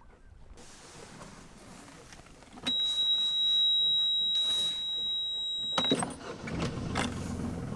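Sailboat engine being started: a high steady alarm tone sounds over about three seconds of cranking, then cuts off with a click as the engine catches. The engine then runs with a low hum.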